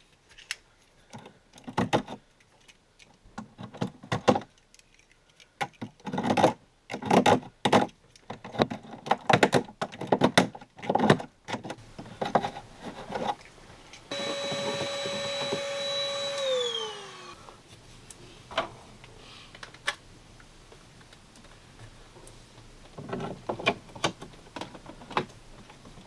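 Clicks and knocks of tools handled against plastic dash trim, then a drill motor runs at a steady whine for about two and a half seconds and winds down as the trigger is released.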